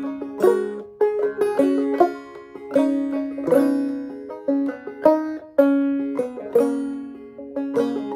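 Five-string banjo played clawhammer style in gCGCD tuning: a slow, melodic solo with struck notes and chords, one or two a second, each ringing on.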